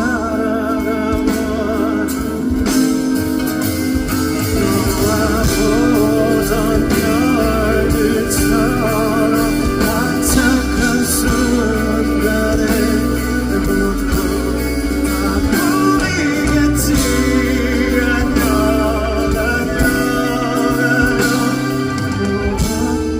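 Music from a band with guitar, a male voice singing long, wavering lines over it.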